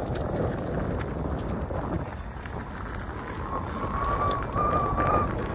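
Electric unicycle rolling along a dirt and gravel trail: tyre noise with small ticks of grit, and wind on the microphone. A steady high whine joins in for the last two seconds or so.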